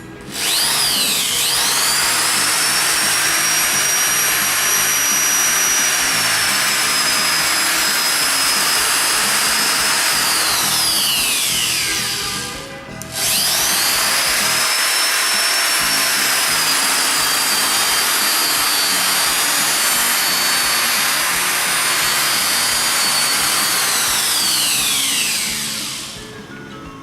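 Bosch GSB 550 corded 550 W impact drill running free with no load: the motor whines up to speed, runs steadily for about eleven seconds and winds down, then is triggered again for a second run of about twelve seconds before spinning down near the end.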